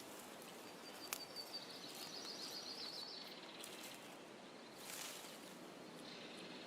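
Faint forest ambience. A high, rapid trill runs for about two and a half seconds near the start, with a sharp click a second in and a brief rustle about five seconds in.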